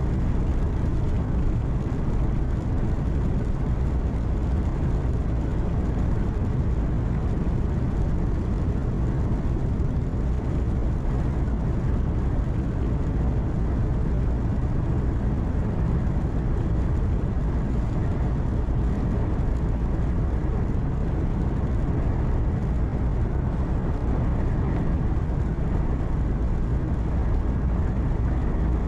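Truck engine running steadily with tyre and road noise, heard from inside the cab while cruising on the highway.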